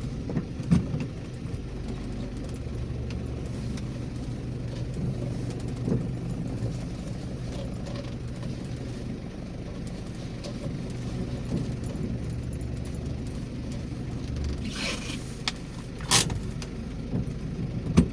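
A car's engine and road noise heard from inside the cabin as it drives slowly, a steady low hum with a few small knocks. About 15 s in the hum changes and there is a short rush of noise and a sharp knock.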